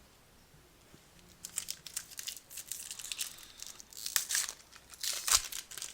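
A trading-card pack's wrapper being torn open and crinkled: crackling rustles that start about a second and a half in and come in bursts, loudest near the end.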